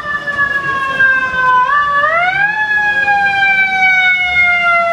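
Fire engine siren wailing loudly. Its pitch sinks slowly, is pushed back up about two seconds in, then slowly sinks again.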